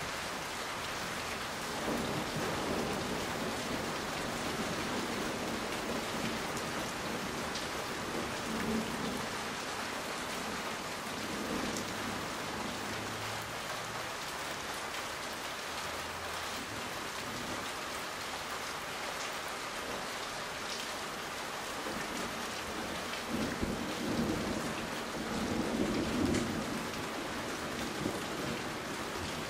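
Steady rain falling in a thunderstorm, with thunder rumbling low several times, the strongest roll about three-quarters of the way in.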